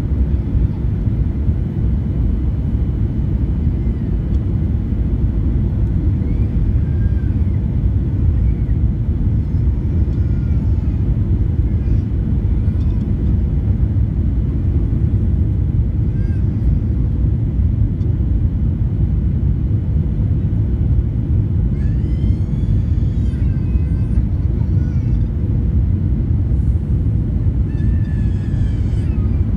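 Steady low cabin roar of a Boeing 737-800 on final approach, heard from a window seat over the wing: its CFM56-7B engines and the airflow over the extended flaps.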